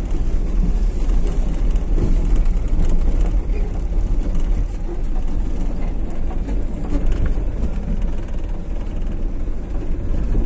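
Steady low rumble of engine and road noise inside a vehicle's cabin as it drives over a rough dirt track.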